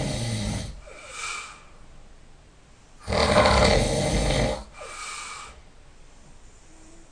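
A person snoring loudly in their sleep: one loud snore trails off under a second in and another comes about three seconds in, lasting a second and a half. Each is followed by a shorter, softer breath.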